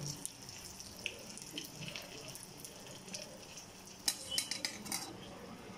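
An egg sizzling as it fries in leftover fish-fry oil in a black wok, with scattered crackles and a quick cluster of sharp pops about four seconds in.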